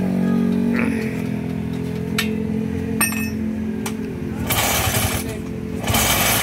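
The kickstarter of a 1962 Vespa's two-stroke single-cylinder engine clunks as it is kicked over a few times. About four and a half seconds in, the engine catches in two loud spurts, the second running on. A steady lower engine hum lies underneath until the spurts.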